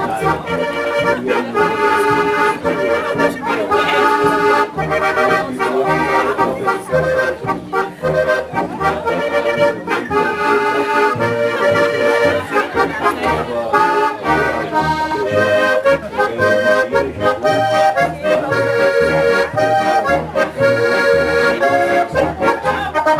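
Accordion and double bass playing a traditional folk tune, the bass plucking a steady beat under the accordion melody.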